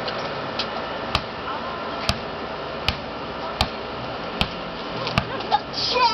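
A run of six sharp clicks at an even pace, a little more than one a second, over a steady hiss; a cat starts to meow right at the end.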